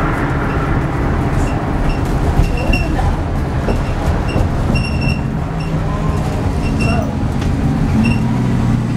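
Volvo B8R bus's rear-mounted diesel engine and road rumble, heard from inside the moving bus. Short high squeaks repeat now and then, and the engine note rises slightly near the end.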